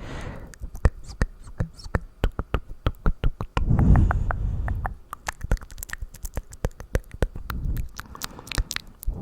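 Close-miked ASMR mouth sounds: wet tongue and lip clicks coming quickly and irregularly. A low rushing sound swells for about a second, roughly four seconds in, and more faintly near the end.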